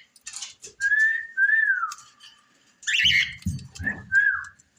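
Short whistled notes: one held note, then one that rises and falls, and a few more brief whistles near the end. About three seconds in come sharp cockatiel chirps, with low thumps and rustling.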